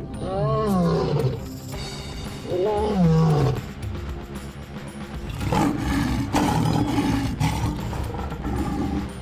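Lion roaring: two deep calls, each sliding down in pitch, in the first four seconds, with background music throughout.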